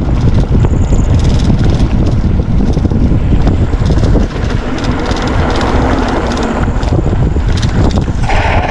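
Wind buffeting the microphone, mixed with the rattle and knocks of a mountain bike running fast over a rough dirt track. A steady tone starts near the end.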